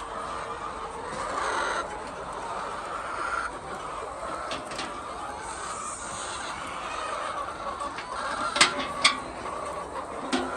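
A flock of egg-laying hens clucking and calling over one another in a continuous din. Two sharp clicks stand out near the end.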